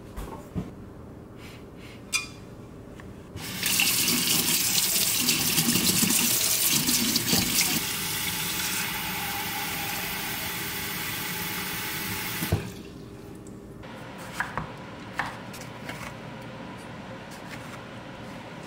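Kitchen tap running into a saucepan held under it at the sink, starting a few seconds in and lasting about nine seconds, a little quieter in its second half, and ending with a sharp knock. After it, a knife slicing a tomato makes a few light taps on a wooden cutting board.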